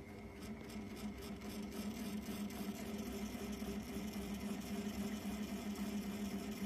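Steady low electric hum, swelling a little over the first two seconds, with a few faint clicks near the start.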